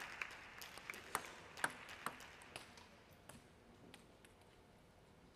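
Faint, irregular pings of celluloid-type table tennis balls striking tables and bats in the hall, a few a second and thinning out. A haze of crowd noise dies away over the first couple of seconds.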